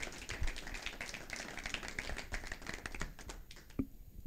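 Small audience applauding, dying away about three and a half seconds in, followed by a single knock.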